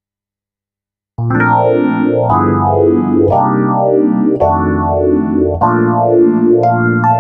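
Synthesized Rhodes-style electric piano voice built from Yamaha synthesizer ROM waveforms, playing sustained chords that change about once a second, with a swirling, sweeping modulation. It starts after about a second of silence.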